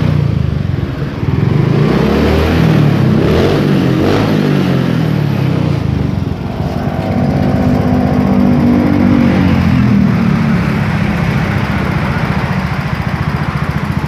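Yamaha Mio J scooter's single-cylinder engine being revved, its pitch rising and falling several times. About ten seconds in it drops back to a steady idle.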